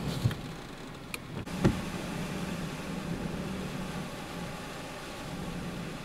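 Strong hurricane wind and storm-surge floodwater rushing past, a steady noisy roar with a low hum under it. Two short thumps come in the first two seconds.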